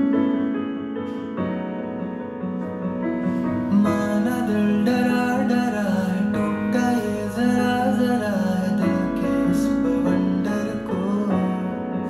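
A song played on a Harman Kardon Omni 10+ wireless speaker: soft piano chords, with a voice starting to sing about four seconds in.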